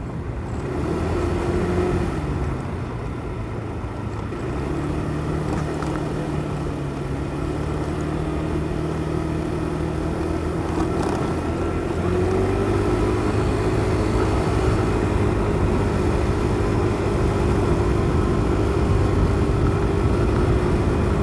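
Motorcycle engine heard through a helmet-mounted mic while riding, with rushing noise underneath. The engine note rises and dips in the first few seconds, runs steady for a while, then climbs about twelve seconds in and holds at a higher pitch.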